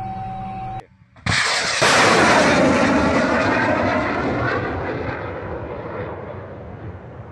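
Tor-M2 surface-to-air missile launching: a sudden blast about a second in, then the rocket motor's rushing noise, loudest just after launch and fading steadily as the missile flies away. Before the launch, a steady electronic tone from the cabin's equipment cuts off.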